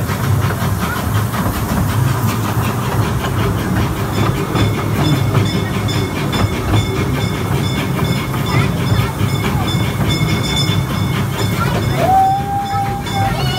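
Amusement-park train ride rolling along its track: a steady rumble with a rhythmic clatter of wheels. A single steady high note, about a second and a half long, sounds near the end.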